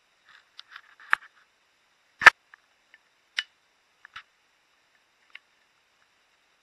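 Handling of a camera-lens-shaped stainless steel travel mug and its plastic lid: a few sharp clicks and knocks, the loudest about two seconds in.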